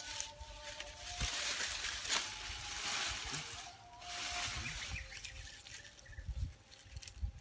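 Rustling and crackling of dry leaves, twigs and brush as hands push through undergrowth, loudest in the middle, with a few low thumps near the end.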